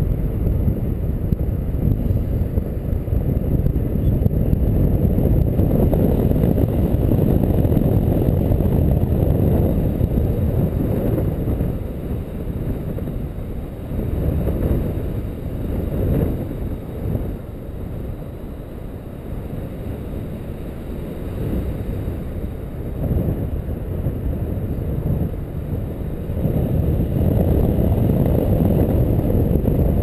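Wind rushing over the microphone of a paraglider pilot's camera in flight: a steady low rumble that eases off for a while in the middle and picks up again near the end.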